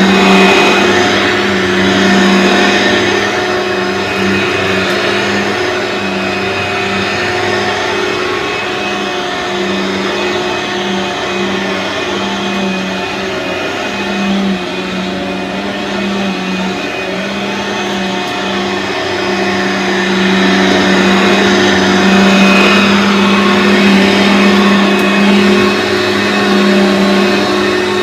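Aeros U162C upright vacuum cleaner running continuously with a steady motor hum, its loudness slowly rising and falling as it vacuums.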